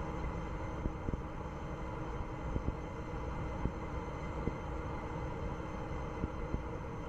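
Steady rumble with scattered faint clicks from Electron's second-stage Rutherford vacuum engine burning, carried on the rocket's onboard audio feed.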